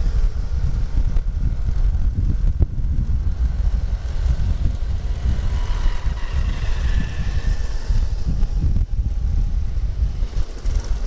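Wind buffeting a helmet-mounted microphone while riding a vintage Vespa Super 150 scooter, with its two-stroke engine and the surrounding traffic running underneath. A faint higher engine whine joins around the middle as motorcycles pass alongside.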